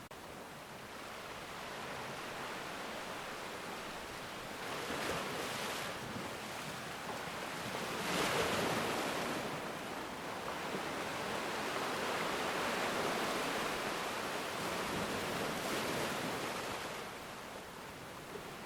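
Ocean waves breaking and washing on shore: a steady rush of surf that swells about four seconds in, is loudest from about eight seconds in, and ebbs again near the end.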